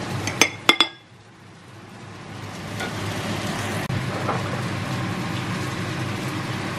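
A spatula clinks twice against a ceramic plate as fried chicken pieces are set down on it, within the first second. A steady hiss follows after a short drop in level, building up over the next couple of seconds and then holding.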